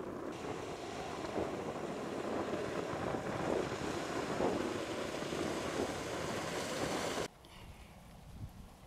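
Wind buffeting the microphone over waves washing against a rocky shore, a dense rushing noise. About seven seconds in it drops suddenly to a much quieter background.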